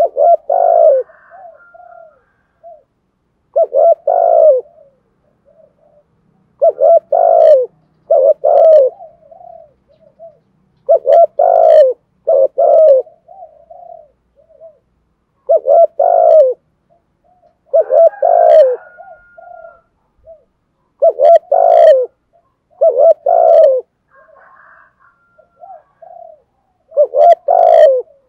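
Male spotted dove cooing over and over in the urgent 'thúc gù' style that keepers use to goad other doves into calling. A steady series of low phrases, each two or three loud coos with softer notes trailing after, comes every two to three seconds.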